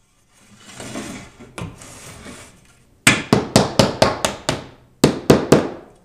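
Hammer tapping a glued wooden shim in under a floor bullnose to level it: a quick run of about seven taps, a short pause, then three more, after a couple of seconds of scraping as the shim is set in place.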